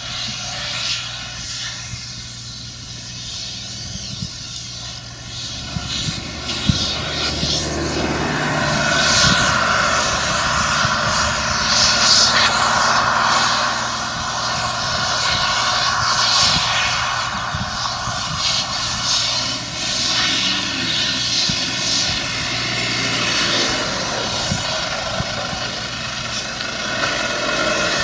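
A large engine running with a steady drone, growing louder from about six seconds in to a peak near the middle, then easing a little and swelling again near the end.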